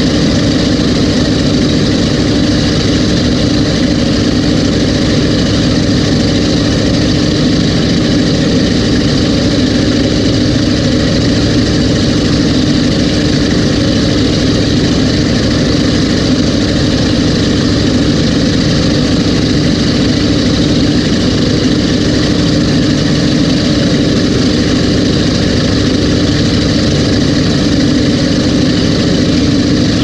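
Twin BDS-supercharged GM 598 cubic-inch (9.8 L) big-block V8 engines of a Cigarette Racing Top Gun 38 offshore boat, running steadily at an even speed with no revving.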